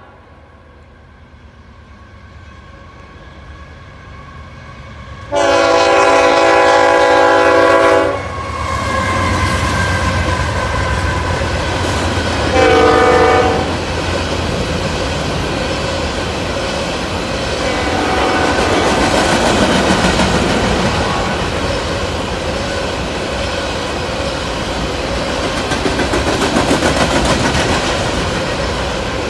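CSX freight train approaching with a swelling rumble, then its locomotive air horn sounds a long blast of about three seconds and a short one about five seconds later. After that a continuous clatter of covered hopper cars rolling past, wheels clicking over the rail joints.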